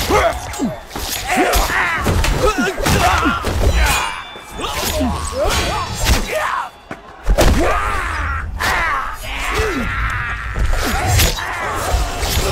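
Film battle sound mix: many men yelling and grunting over repeated thuds and clashes of weapons and shields, with a low rumble underneath. The din drops briefly about seven seconds in, then comes back at full strength.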